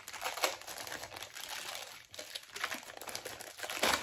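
Plastic toy packaging crinkling and crackling in irregular bursts as it is handled and opened by hand, with a sharper crackle just before the end.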